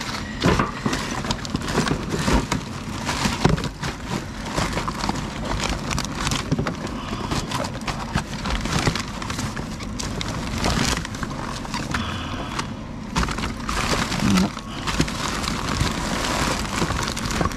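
Hands rummaging through a steel drum bin of mixed rubbish: plastic bags and packaging crinkling, with cardboard boxes and scrap clattering against the drum in a steady run of short knocks and rustles.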